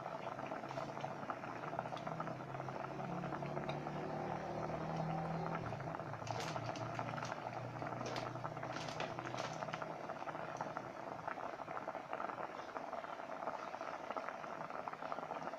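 Coconut-milk curry bubbling in an aluminium pot on the hotplate: a steady fine crackle of bursting bubbles, with a few louder pops in the middle.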